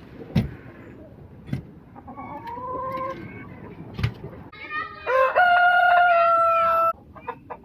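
A rooster crows once, a loud call that starts choppy about halfway through and is then held for nearly two seconds before it stops. Before it come a shorter chicken call and a few sharp knocks.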